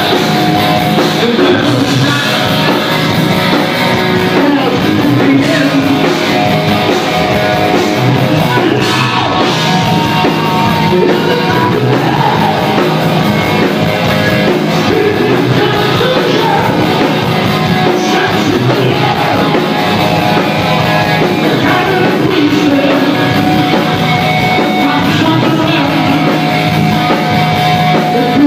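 Loud rock music with singing and guitar, playing continuously.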